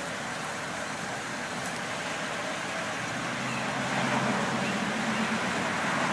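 Chevrolet SSR's retractable hardtop being worked by remote, its electric roof motor giving a steady low hum that comes in about three seconds in and stops about two seconds later, over a steady hiss.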